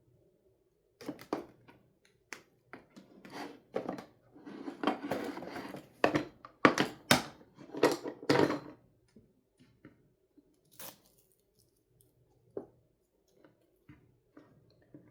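Wooden toy pizza pieces being handled: sharp clicks and knocks mixed with scraping and rustling, busiest in the first half and thinning to a few scattered clicks near the end.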